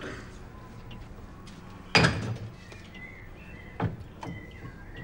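A door shutting with a bang about two seconds in, then a lighter knock almost two seconds later, with faint clicks of small objects being handled.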